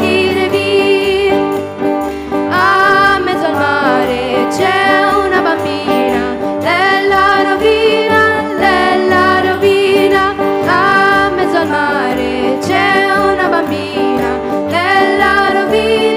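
Live folk music: two girls' voices singing together, accompanied by acoustic guitar and keyboard, with a steady beat in the bass.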